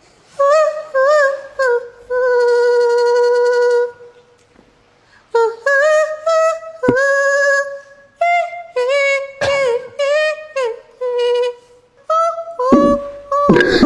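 A woman singing high, held notes with a wavering pitch in short phrases, seemingly without clear words, close to humming. A rougher, lower sound joins near the end.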